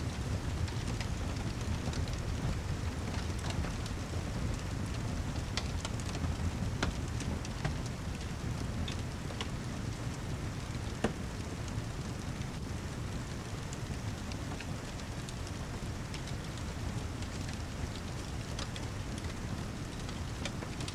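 Steady heavy rain with a low rumble, mixed with a fireplace crackling. Scattered small pops run through it, with one sharper pop about eleven seconds in.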